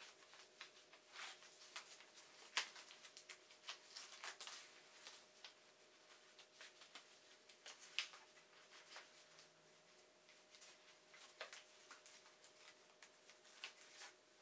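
Faint rustling of fabric and light clicks as folded trekking poles are pushed into a stretchy running belt worn at the back, with a couple of sharper ticks from the poles knocking.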